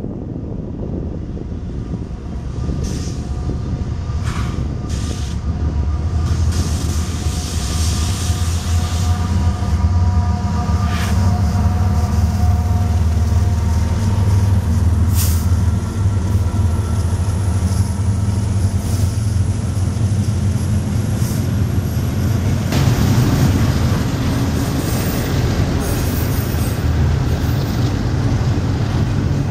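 CSX and Norfolk Southern diesel freight locomotives passing close by, with a deep engine drone that builds as they come alongside, then the rumble of the train rolling on. Thin squealing tones from the wheels sound through the first half, with a few short clicks.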